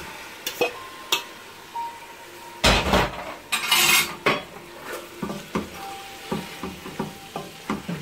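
A fork clinks and scrapes against a bowl as raw boneless lamb pieces are tipped into a hot steel pot of spice masala. The meat drops in with a loud sizzle about three seconds in. Then a wooden spoon stirs it, knocking against the pot about three times a second.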